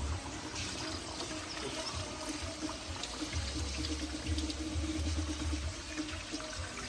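Liquid trickling and pouring steadily: fresh coconut milk being squeezed by hand out of grated coconut.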